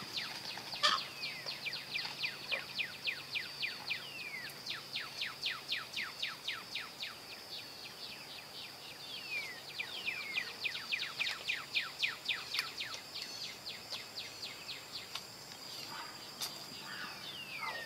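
Outdoor wildlife ambience: a steady high insect drone with long runs of quick downward chirps, about three or four a second, and now and then a longer call sliding down in pitch from a bird.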